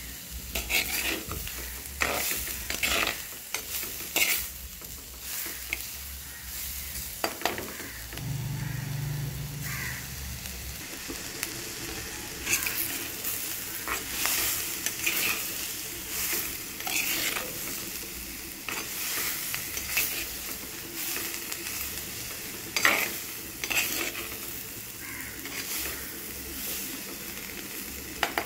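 Onions and cauliflower sizzling in hot oil in an earthenware clay pot, stirred with a spatula that scrapes and knocks against the pot many times at irregular intervals.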